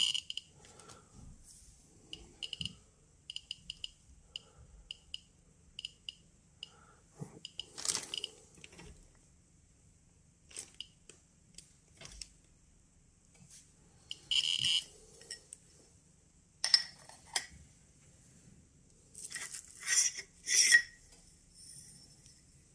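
Geiger counter giving short, irregular beeps, one per count from the Geiger–Müller tube under test, a few each second at first. Crinkling of a plastic bag and clicks of metal tubes being handled come in between, loudest in a few bursts in the second half.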